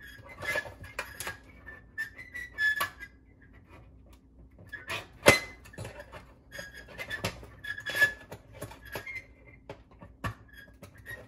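Irregular metallic clicks and clinks as the wire spade connectors are pushed back onto an electric oven's bake element terminals, the sharpest click about five seconds in, with short faint high tones between the clicks.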